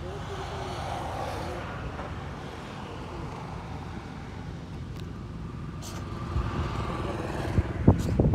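Wind buffeting a phone's microphone as a steady low rumble, with loud crackling rustles near the end as leafy branches are handled right against the phone.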